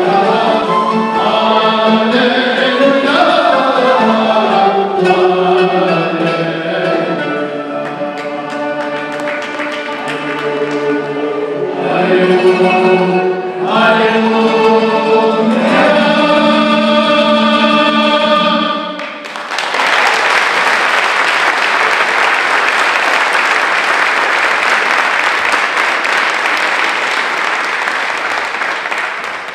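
Choir singing a Sephardic synagogue hymn in Turkish makam style with traditional Turkish instruments, closing on a held final chord. About two-thirds of the way in, the audience breaks into applause that goes on for about ten seconds and fades near the end.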